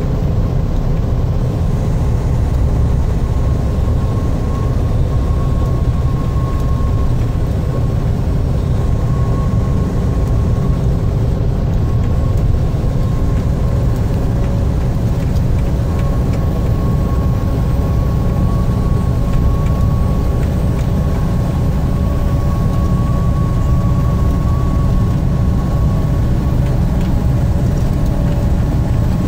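Steady engine and road noise heard inside a vehicle's cab while cruising at highway speed, deep and even, with a faint steady whine above it.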